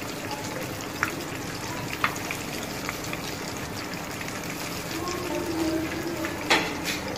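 Breaded cutlets deep-frying in hot oil in a wok: a steady bubbling sizzle, with a few light clicks scattered through it.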